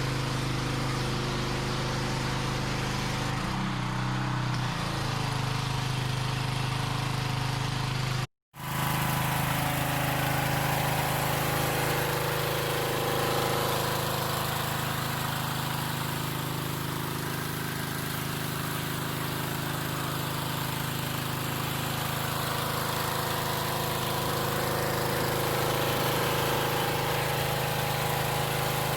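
A small 148cc four-stroke Craftsman gas pressure washer engine runs steadily under load while the water jet hisses against concrete. The sound cuts out completely for a split second about eight seconds in, then carries on unchanged.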